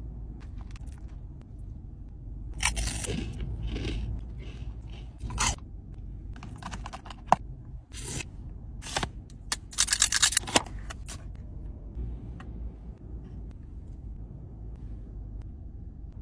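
Plastic spoon scraping and scooping soft-serve ice cream in a plastic dessert cup: a run of scrapes and crunches with a few sharp clicks between about 2 and 11 seconds in, over a low steady hum.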